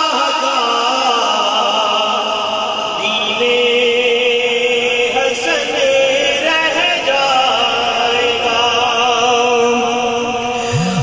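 Devotional Urdu naat chanted by a male voice through a PA system, with long held notes that waver in pitch.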